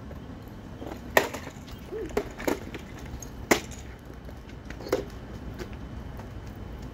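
A handful of sharp knocks and clacks, like hard objects being handled and set down, spread over a few seconds above a steady low hum.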